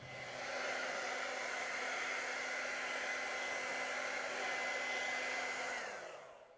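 Handheld hair dryer blowing on wet acrylic paint to dry it: a steady rush of air with a faint high whine. Near the end it is switched off and its whine winds down and fades.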